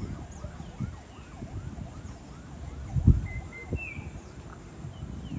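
Wind gusting against the microphone, with the strongest gust about three seconds in, while small birds chirp continually and one gives a brief higher call near the end.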